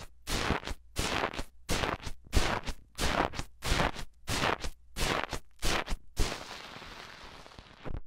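Bubbly foam slime crackling and popping right against a mini microphone as it is pressed in over and over, about two or three crackling pokes a second. Near the end it becomes a continuous crackle for about two seconds and then cuts off suddenly.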